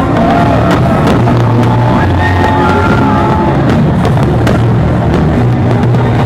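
Loud music with a steady bass line and drum hits, with a held melody line in the middle.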